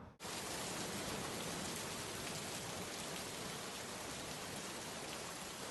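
Rain sound effect: a steady, even hiss of falling rain that cuts in abruptly a moment in and holds at a constant level.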